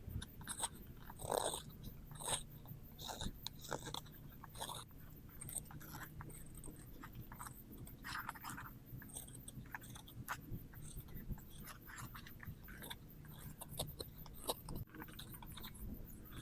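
A steel tool working wood: irregular scraping and crunching strokes with scattered small clicks and knocks.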